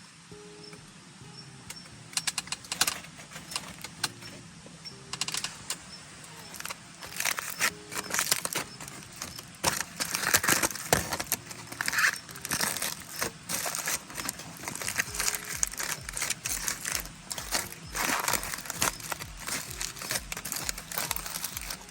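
Crinkling, rustling and clinking handling sounds with many scattered clicks, over soft background music with a light melody and, in the second half, a low steady beat.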